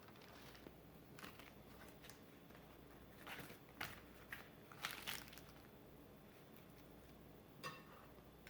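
Faint crinkling and rustling in a few short bursts, from the filled flour tortilla with lettuce and other fillings being handled and rolled up.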